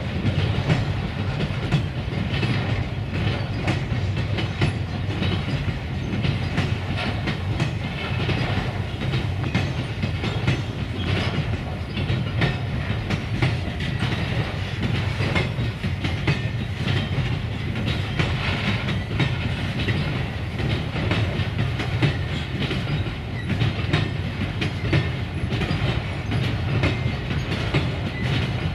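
Freight train wagons rolling past, with steady rumbling and continuous clickety-clack of wheels over the rail joints.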